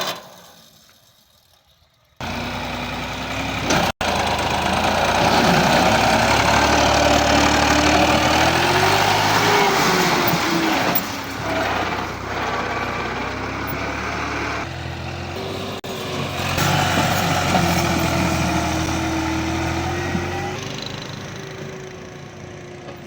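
Heavy earthmoving machinery's engine running under working load, its pitch rising and falling. It starts abruptly a couple of seconds in and fades away near the end.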